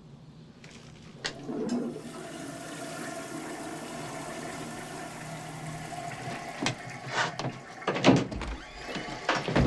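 A toilet flushing: water rushes into the bowl and runs on steadily. A few sharp knocks and thumps come over it in the last few seconds, the loudest about eight seconds in.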